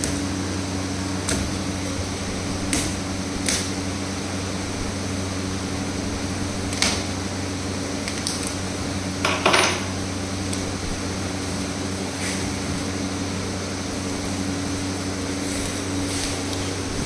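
Scattered clicks and taps, with one longer scrape a little past halfway, as the taped end of a parcel tube is worked open and its bubble-wrapped contents pulled out, all over a steady hum in the room.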